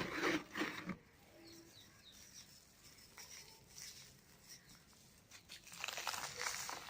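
Dry cement balls and cubes crumbling and crunching as they are crushed: a burst of gritty crackling at the start and another near the end, with fainter crackles between.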